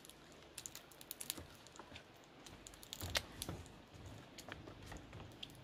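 Faint scattered clicks and creaks of someone shifting on a split-bamboo platform. A louder cluster of taps and rustling comes about three seconds in.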